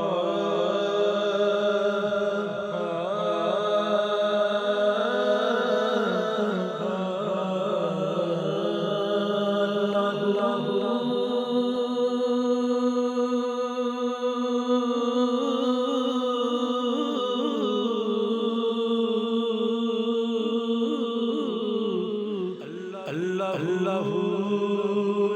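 A solo voice singing a devotional kalam (naat) with no accompaniment, holding long, ornamented notes with wavering pitch. There is a brief dip about 22 seconds in, and the voice comes back with 'Allahu' near the end.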